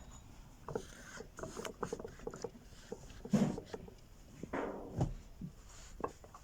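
Irregular clicks, knocks and brief rustling of metal parts and tools being handled during a steering column repair, with a heavier knock about five seconds in.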